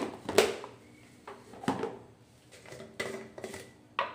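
Kitchen handling sounds: a plastic salt tub with a snap-on lid and a glass spice jar with a plastic spoon being handled, giving about half a dozen sharp clicks and knocks while salt is added to raw chicken in a steel bowl.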